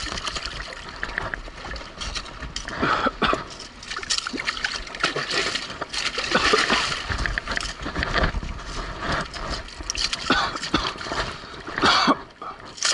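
A hooked sea bass thrashing at the water's surface while being landed: irregular splashing and sloshing, loudest about three seconds in, midway, and near the end.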